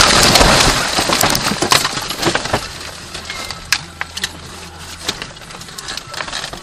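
A car crashing through roadside bushes and small trees, heard from inside the cabin: loud scraping and crackling of branches against the body and windshield that fades over about two and a half seconds, then scattered clicks and rattles of debris settling.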